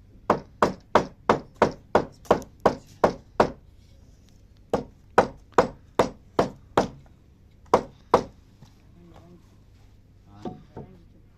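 Repeated sharp strikes on wood, about three a second: a run of eleven, a pause, six more, then two, with two fainter knocks near the end.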